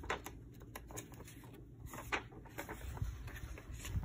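Paper scraps and a clear plastic sleeve rustling and crinkling as they are handled, in short irregular bursts with a sharper crackle about two seconds in.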